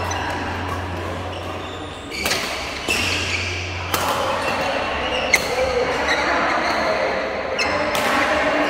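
Badminton rackets striking a shuttlecock in a large echoing hall: about five sharp cracks at uneven spacing, over a low steady hum.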